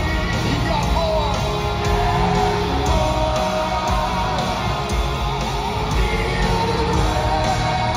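Heavy metal band playing live in an arena, heard from the stands: distorted guitars and drums with a steady, dense wall of sound.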